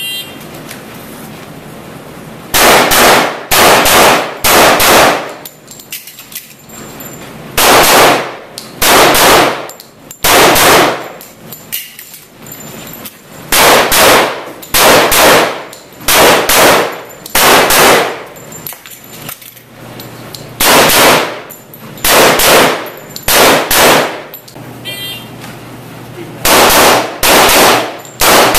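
Pistol shots from a single-stack STI pistol, fired in quick pairs and short strings with pauses of a second or more between them, each shot echoing off the walls of an indoor range.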